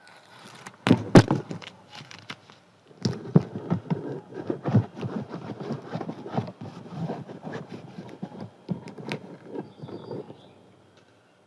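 Paper crackling and rustling as it is handled and cut with scissors, with a few sharp clicks about a second in.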